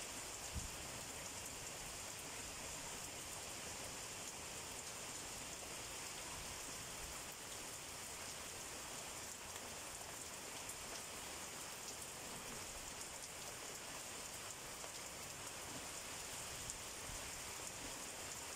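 Heavy rain falling steadily on banana plants and trees as an even, unbroken hiss, with a brief low thump about half a second in.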